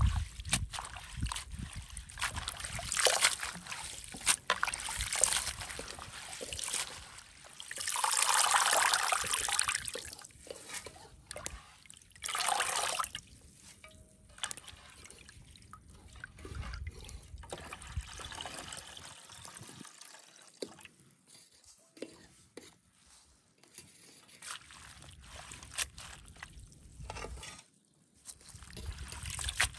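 Hands swishing fresh leafy greens through a bowl of water, with a few louder sloshing washes in the first half. Then quieter dripping and leaf rustling as rinsed handfuls are lifted out into a metal colander.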